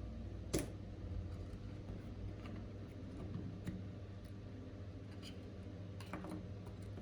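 A few light clicks and ticks of small hand tools handling a small part at the workbench, over a steady low electrical hum.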